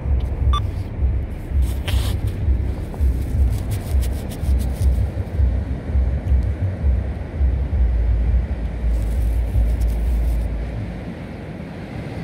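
Low, buffeting rumble of wind and handling on a phone microphone, easing near the end. Over it comes the scattered crackle of wet sand rubbed and sifted in a gloved hand to free a small coin, with one short beep about half a second in.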